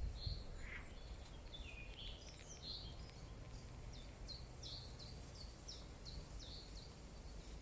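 Small birds chirping faintly: a run of short, high notes that slide downward, about two a second, over a low steady background hum.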